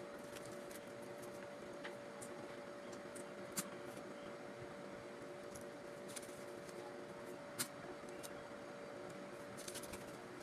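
Faint handling of banknotes and a plastic bag on a tabletop: soft rustling and small crackles, with two sharp clicks a few seconds apart and a short burst of crinkling near the end. A steady low hum runs underneath.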